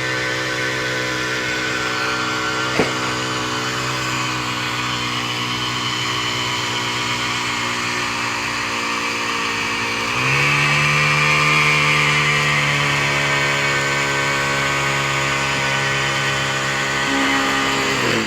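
Small gas engine of a vibrating power screed running steadily as it levels and settles wet concrete, speeding up and getting louder about ten seconds in and easing back just before the end. A single sharp click about three seconds in.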